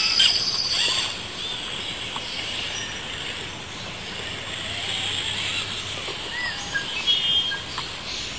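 Wild birds chirping and calling, several short separate calls scattered through, over a steady background rush.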